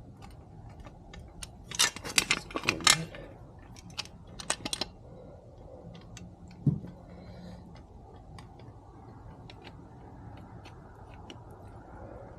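Small metal bolts and hardware clinking and rattling as they are handled, in two short bursts, with one dull knock a little past the middle and light ticks between.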